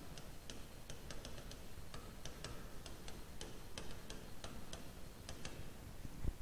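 Stylus tapping and clicking against a tablet screen during handwriting: faint, irregular light ticks a few times a second over a low background hiss.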